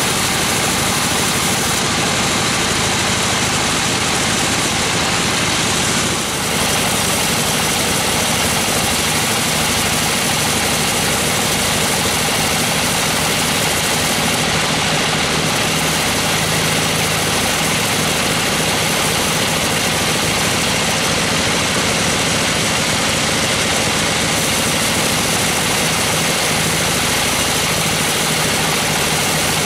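Band sawmill running steadily, its band-saw blade cutting through gmelina (white teak) timber, with a loud, even mechanical drone. There is a brief dip about six seconds in.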